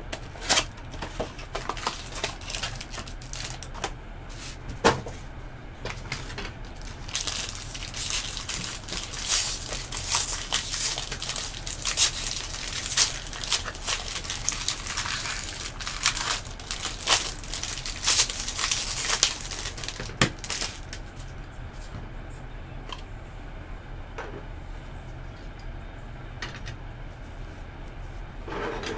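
Plastic packaging of a trading-card box being torn open and crinkled by hand, with clicks and taps of hard plastic card cases. The crinkling is densest through the middle of the stretch and thins out near the end.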